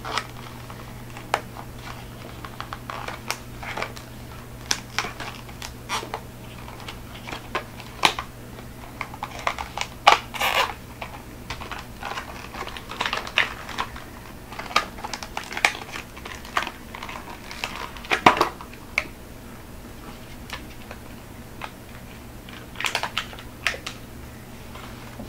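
Plastic blister packaging of a toy car being worked open by hand: irregular clicks and crackles of the plastic, some sharper snaps among them, over a steady low hum.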